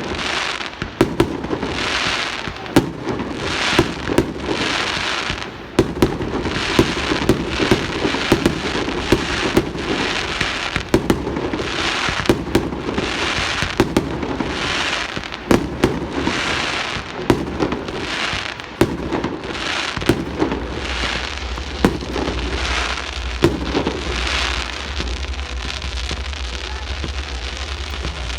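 Fireworks going off: sharp bangs with crackling showers swelling and fading about every second and a half.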